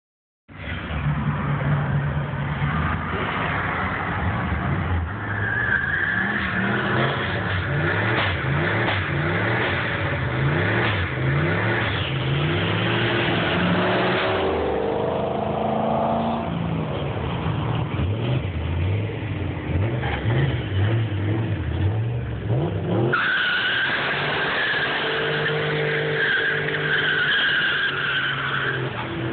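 Turbocharged Ford Mustang doing a burnout: the engine revs up and down hard while the rear tyres spin and squeal on the pavement. About three quarters of the way through, the sound changes abruptly to a steadier engine note.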